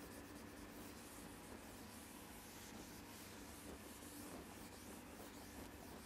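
Faint rubbing of a duster wiping a whiteboard clean.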